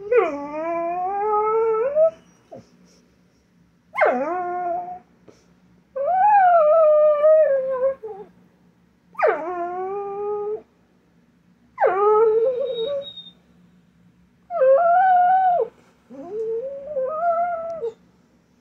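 A dog whining and howling: seven drawn-out, pitched calls, each one to two seconds long, with short pauses between them. It is separation whining for its absent owner.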